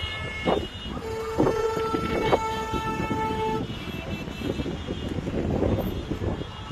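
Car horns honking in jammed traffic. A higher-pitched horn stops just after the start, then a lower horn is held for about two and a half seconds from about a second in. A steady noisy rumble of traffic follows.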